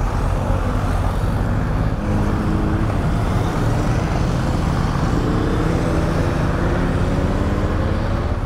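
BMW R1250GS boxer-twin engine idling steadily in neutral, while other motorcycles ride past and pull away, their engine notes rising about two seconds in and again through the second half.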